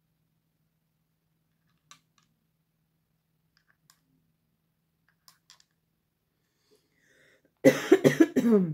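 Faint, scattered clicks of small seashells being handled and set on a wooden frame. Near the end comes a loud, brief sound of about a second, falling in pitch.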